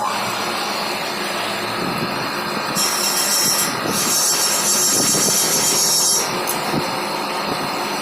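A machine running steadily with a loud, even noise, joined by a higher hiss from about three to six seconds in.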